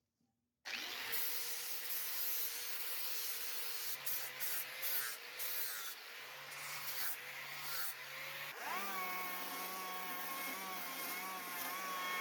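A power tool starts up abruptly and runs with a steady hiss and a wavering hum. About eight seconds in its pitch changes, gliding up briefly and settling to a higher steady whine.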